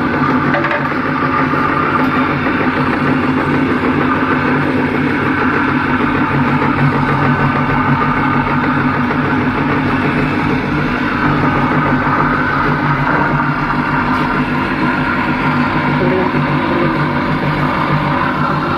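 A motor-driven generator rig, a rewound water-pump motor with a belt-driven car alternator, running at a steady speed with an even, continuous hum.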